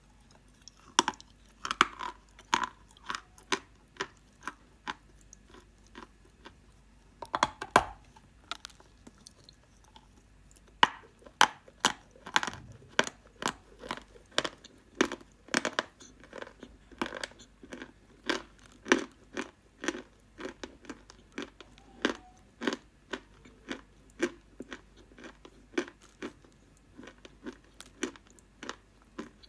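Close-up crunching of dry edible clay being bitten and chewed, crisp cracking crunches. A bite lands about eight seconds in, then steady chewing follows at about two to three crunches a second.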